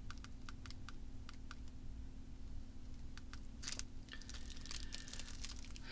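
Faint scattered small clicks and a brief rustle from small objects being handled on a craft table, over a steady low hum.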